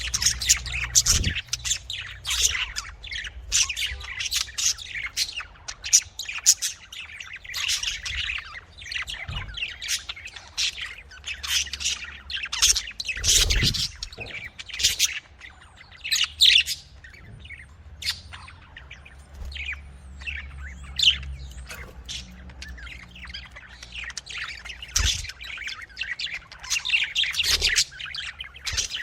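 Budgies (budgerigars) chirping and squawking continuously in quick, overlapping short calls.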